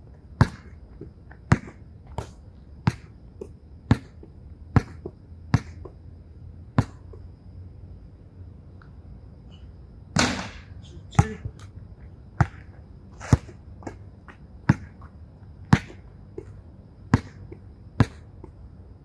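Basketball bounced on an outdoor court in a free-throw routine, a sharp bounce every half second to a second. About ten seconds in comes a longer, rattling hit as the ball is shot off the backboard and rim, then the bounces pick up again.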